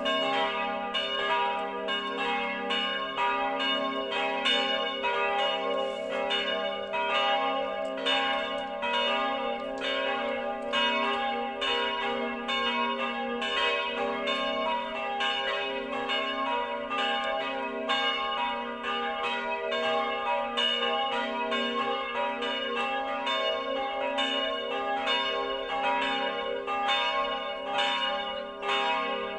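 Church bells swinging and ringing together, cast in 1950 by Karl Czudnochowsky of Erding for a peal tuned g', b', c''. The strikes come several times a second and overlap in a steady, continuous peal.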